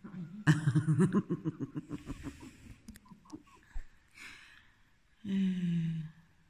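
A person laughing in quick, breathy bursts for about two seconds, then a held vocal sound about a second long near the end.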